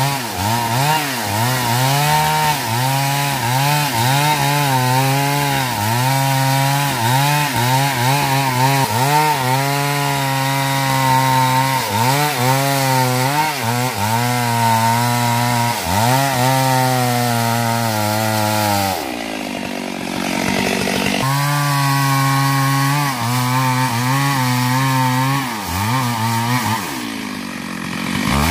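Petrol chainsaw cutting wood under load, its engine note sagging and recovering over and over as the chain bites. About two-thirds of the way through it falls back to a low idle for a couple of seconds, then revs up and cuts again.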